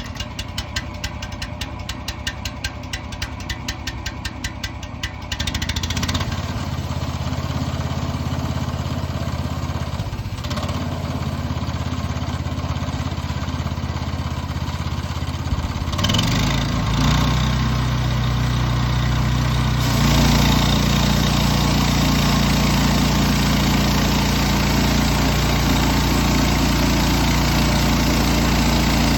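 Resaw bandsaw cutting spruce cants into boards. Its steady mechanical hum with low tones gets louder in steps, about five, sixteen and twenty seconds in. Rapid, even clicking runs through the first five seconds.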